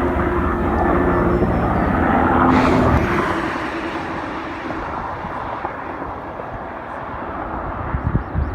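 Propeller aircraft engine droning overhead, with a steady pitched hum that drops away sharply about three seconds in and fades to a low rushing noise. A few low thumps come near the end.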